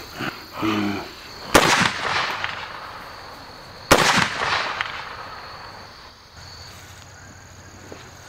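A man's low groan in the first second, then two gunshots from a long gun about two seconds apart, each with a long echoing tail.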